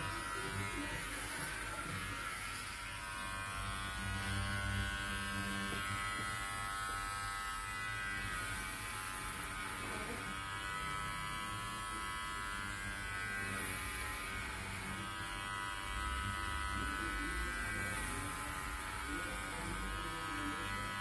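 Electric hair clippers buzzing steadily, cutting short hair for an undercut, the buzz wavering slightly in pitch.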